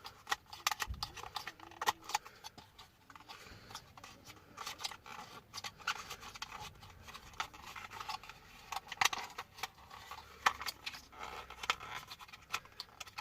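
Scattered light clicks and rattles of small plastic and metal parts being handled, with irregular taps and no steady rhythm, while a 12 V USB charger socket and its tightening ring are fitted into a car console panel.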